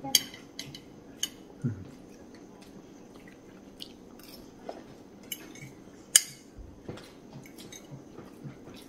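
A fork clinking now and then against a ceramic bowl, with chewing as he eats vegetables from it. The clinks are short and scattered, the sharpest a little past halfway.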